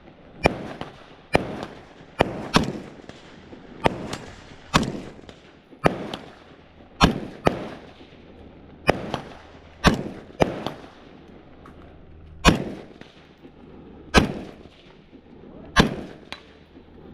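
Rifle and handgun shots fired singly in an uneven string, about fifteen in all, each a sharp crack with a short echoing tail.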